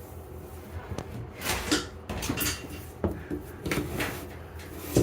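Dryer vent cleaning brush and its flexible extension rods being pulled out of a dryer vent duct: irregular scraping swishes and light knocks as the rods and brush rub along the duct, a stroke about every half second.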